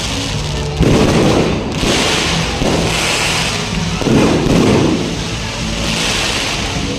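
Fireworks going off, with two loud booms about a second in and just after four seconds, and crackling sparks in between and toward the end.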